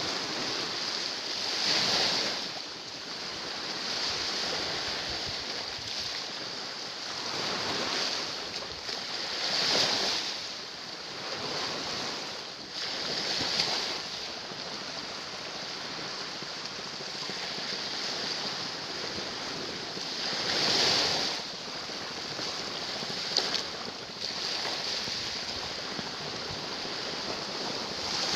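Sea waves breaking and washing against shoreline rocks: a steady rush of surf that swells into louder surges every few seconds.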